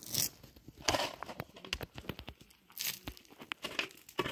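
Short, irregular bursts of crinkling and rustling, with scattered small clicks between them.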